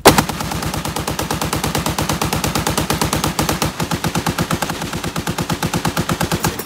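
A turret-mounted machine gun on a Sherman tank firing one long fully automatic burst at about eight rounds a second, with the first shot the loudest.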